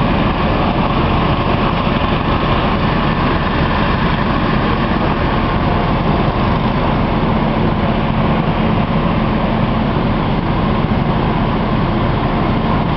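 Fire engine's diesel engine running steadily at the scene, a loud constant rumble with a hiss over it.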